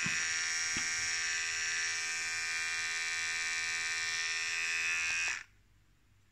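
Xiaomi Enchen cordless hair clipper running with a steady high-pitched buzz, stopping suddenly about five seconds in.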